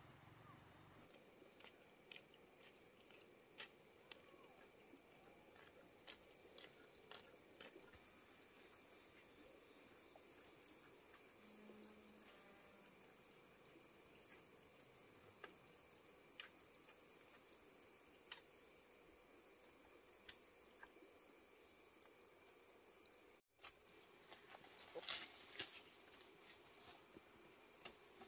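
Faint, steady high-pitched insect chirring, with scattered light clicks and taps; the chirring grows a little stronger about a third of the way in and drops out briefly near the end.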